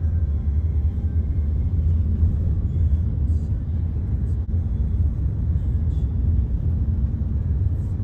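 Steady low rumble of road and engine noise inside a moving car.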